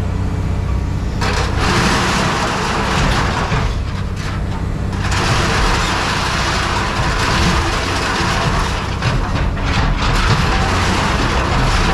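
Heavy machinery with an engine running steadily, with long stretches of loud rushing, grinding noise over the low engine hum.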